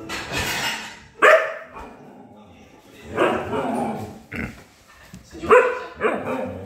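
Husky barking and vocalizing in several short outbursts, the loudest about a second in and again about five and a half seconds in.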